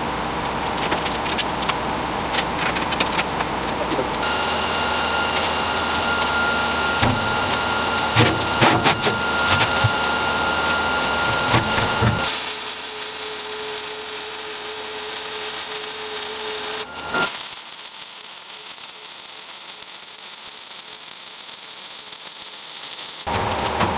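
Metal-fabrication shop tool noise in several short segments, each cutting off abruptly into the next. The later segments are mostly a steady hiss.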